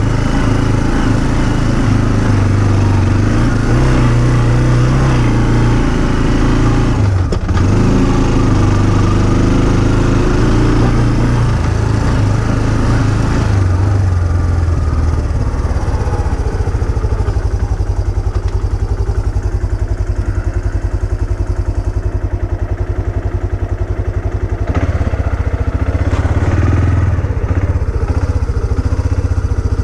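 Engine of an off-road trail vehicle under way, its pitch rising and falling with the throttle. About 13 seconds in it settles to a slower, even beat like a low idle, then picks up again near the end.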